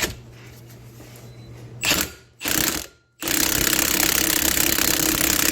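A ratcheting power tool turns the screw of a threaded hub-and-bearing press tool, drawing a wheel hub into a new bearing in a steering knuckle. There are a few short bursts at first, then from about three seconds in the tool runs steadily.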